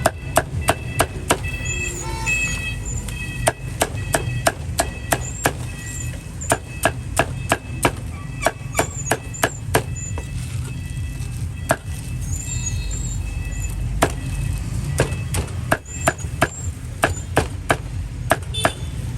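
A cleaver chopping pork on a chopping block: a run of sharp chops, about two to three a second, with a few brief pauses, over a low traffic rumble.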